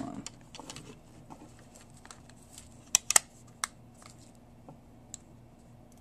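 Small plastic clicks and handling noise from a Flip Ultra pocket camcorder being worked with both hands, with a sharp pair of clicks about three seconds in and another a moment later; it is being latched and locked.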